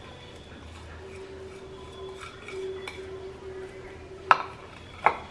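Plastic spoon scraping leftover pickle masala from a plastic bowl into a plastic container, with a few light clicks, then two sharp knocks near the end.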